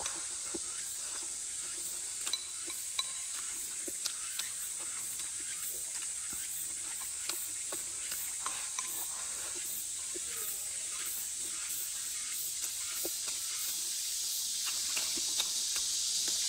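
Eating sounds: small clicks of wooden chopsticks against a ceramic bowl and soft chewing, over a steady high hiss that grows louder near the end.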